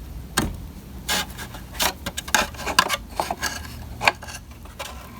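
Irregular light clicks and knocks of hands handling the vacuum cleaner's plastic housing, drive belt and brush roller, about half a dozen in all, as the belt is checked for slack ahead of being replaced.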